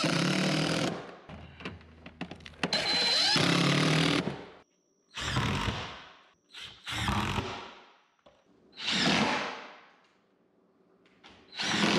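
Cordless drill-driver running in several short bursts, driving 1-inch galvanized self-piercing lath screws through expanded metal lath into the wooden hearth platform.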